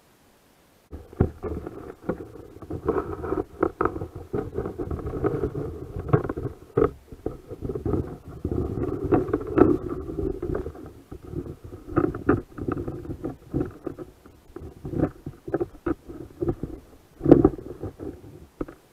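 Muffled rumbling and irregular knocks and clicks from an underwater camera being handled and moved about. It starts suddenly about a second in.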